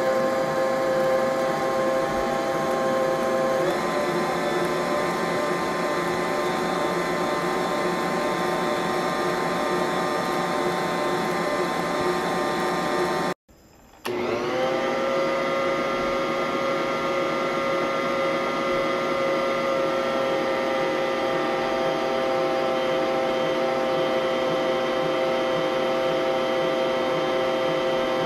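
Bosch Universal Plus stand mixer running steadily with a motor whine as the dough hook kneads a packed bowl of cookie dough. Halfway through the sound cuts out for a moment, then the motor starts again, its whine rising as it comes up to speed and then holding steady.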